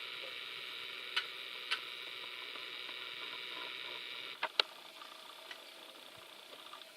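Four short, sharp gunshot cracks over a steady hiss: two about a second in, half a second apart, then a closer pair about four and a half seconds in, the last the loudest. The hiss drops away after the last pair.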